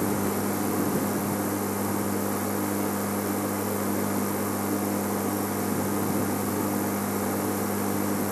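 Game-drive vehicle's engine idling, a steady low hum.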